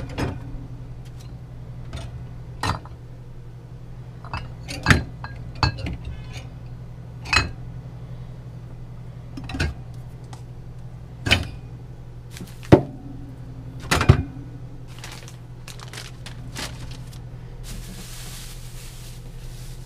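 Glass jars, bottles and plastic containers clinking and knocking as they are moved around on refrigerator shelves: about ten separate sharp knocks, over a steady low hum, with a short stretch of hiss near the end.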